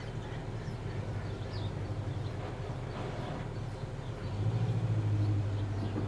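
Steady low background hum that gets louder for about a second and a half near the end, with faint short high chirps here and there.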